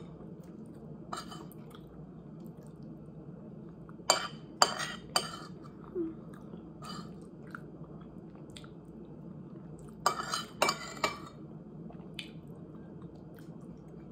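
Metal spoon clinking and scraping against a ceramic plate while eating: three sharp clinks about four seconds in and a quick cluster of clinks around ten seconds, over a steady low background hum.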